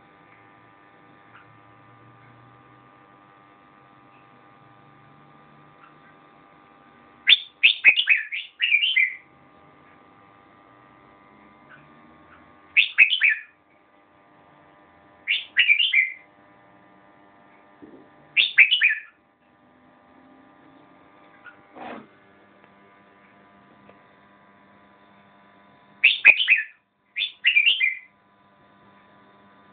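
Caged red-whiskered bulbul singing short, loud bursts of quick falling notes every few seconds. A faint steady electrical hum fills the gaps between phrases.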